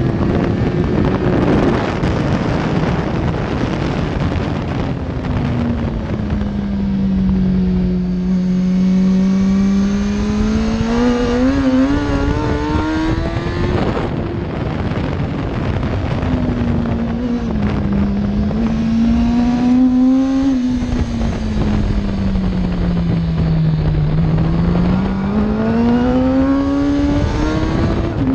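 2005 Kawasaki ZX-10R's 998 cc inline-four engine running at part throttle, its note sinking and rising in slow sweeps with engine speed and breaking off sharply about halfway, under loud wind rush and buffeting over the bike-mounted microphone.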